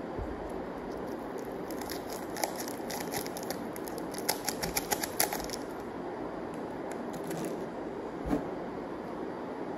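Plastic packets crinkling and clicking as they are handled, in a quick run of crackles a few seconds in, then a single knock near the end, over steady background noise.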